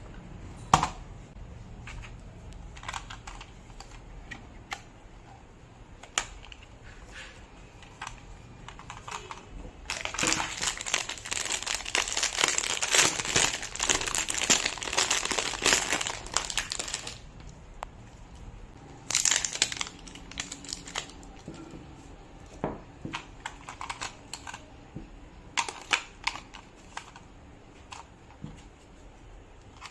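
Packaging being unwrapped and crinkled by hand, with scattered clicks and taps. About a third of the way in comes a long, dense stretch of crinkling lasting several seconds, and a shorter rustle follows a little later.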